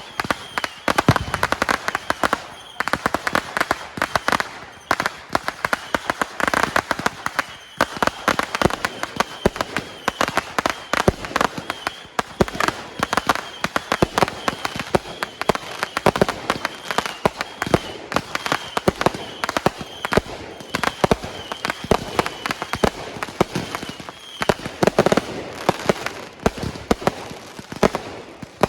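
Fireworks display going off without a pause: dense, rapid crackling and popping with many sharp reports a second.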